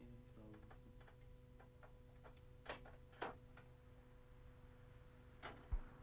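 Near silence with a steady low hum and a few faint, scattered clicks from a pipe cutter being worked on the cold water pipe.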